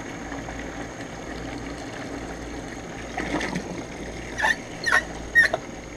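Garden hose running water into a bucket of live crawfish, a steady trickling splash; a few short sharp knocks come near the end.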